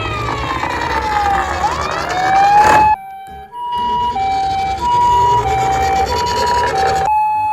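A wailing emergency-vehicle siren glides down and back up over engine rumble, then cuts off about three seconds in. After a short gap, a Japanese ambulance's two-tone hi-lo siren alternates steadily between a higher and a lower note, about every half second. A held wailing siren tone begins near the end.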